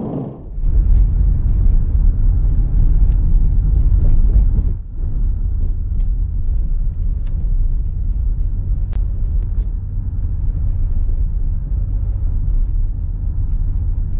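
Steady low rumble of a car driving, heard from inside the cabin, with a brief drop a little under five seconds in.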